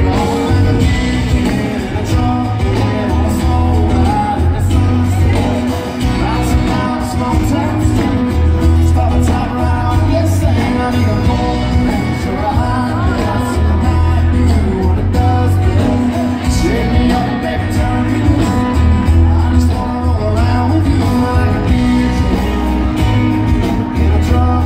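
Country band playing live: a male lead singer over electric guitars, bass and drums, with a strong, heavy bass.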